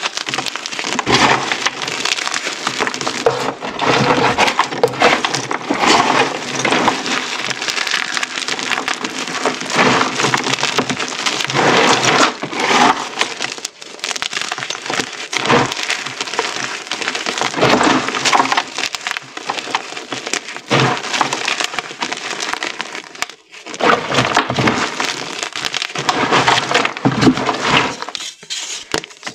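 Hands crushing and crumbling handfuls of hard pink-dyed gym chalk chunks: a dense run of crunching and crackling, with a couple of short pauses between handfuls.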